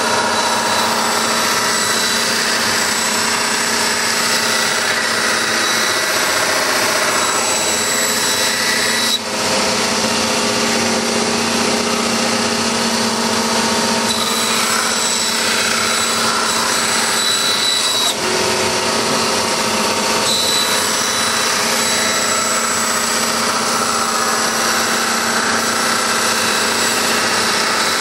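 Power tool running steadily, removing material from the top of a molded orthotic, with a steady hum and high whine that dip briefly twice.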